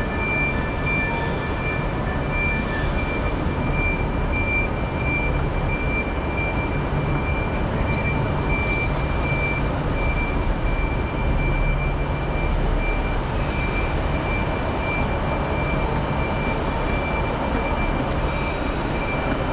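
Steady rumble of trains standing at the platforms, with a low hum and a steady high-pitched whine.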